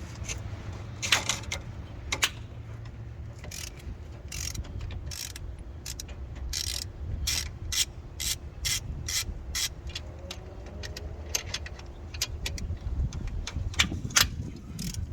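Ratchet wrench clicking in runs as cylinder head bolts are loosened on a 5.7-litre Hemi V8, with a few louder sharp cracks among the clicks, over a steady low hum.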